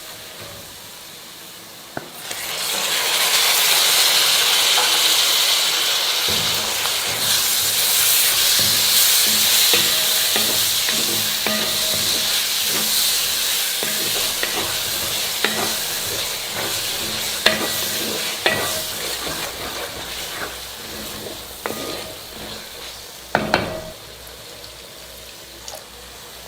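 Food sizzling in hot oil in a pan, starting suddenly about two seconds in and slowly dying down, while a spoon scrapes and taps against the pan as it is stirred.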